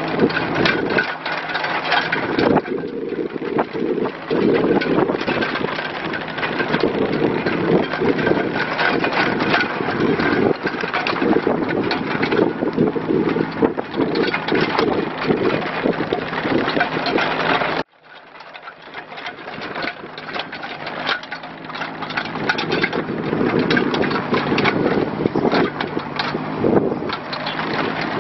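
Kubota K008-3 mini excavator's small three-cylinder diesel engine running, rising and falling under hydraulic load as the boom, arm and bucket are worked. The sound cuts out abruptly about two-thirds of the way through and builds back up within a couple of seconds.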